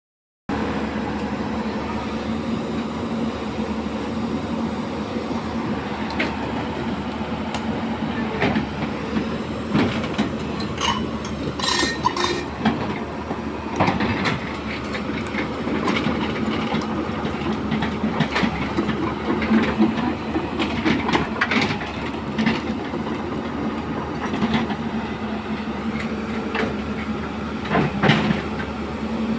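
Hyundai 215L hydraulic excavator working: its diesel engine runs steadily under load, with irregular clanks and knocks from the machine throughout, a cluster of them about halfway through and a loud one near the end.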